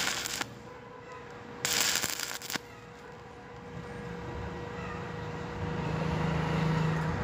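Stick (arc) welding: two short bursts of crackling electrode arc, about a second each, near the start and about two seconds in, as thin flat bar is tack-welded to square tube. A low hum rises in the second half.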